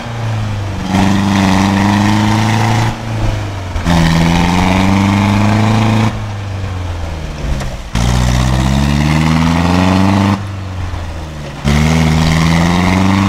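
Land Rover Series pickup's engine revving hard under load in four surges, the revs falling away between them, as it climbs a muddy slope with its wheels spinning.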